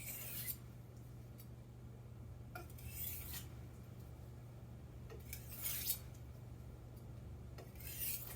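Japanese kitchen knife blade stroked across a sharpening surface in stropping passes: four short rasping scrapes about two and a half seconds apart, with a steady low hum underneath.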